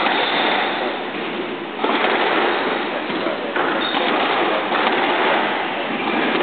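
Squash rally: a squash ball is struck by rackets and hits the walls every second or two, over a steady noise from the hall.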